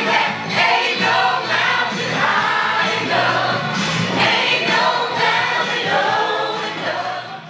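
Dance music with many voices singing along together, the crowd on the dance floor joining loudly in the song; it fades out near the end.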